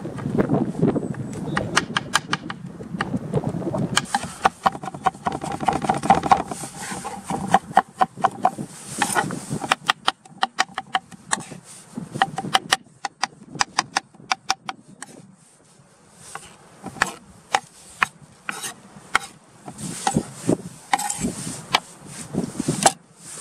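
Kitchen knife chopping tomato pulp on a wooden cutting board: quick runs of sharp taps as the blade strikes the board, broken by short pauses.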